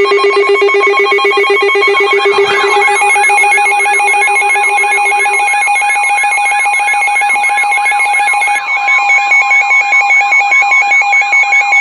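Weather radio alert alarms, several sounding together. A warbling tone rises and falls about three times a second over steady and rapidly pulsing beeps. A low tone drops out about halfway through, and the beeping changes near the end.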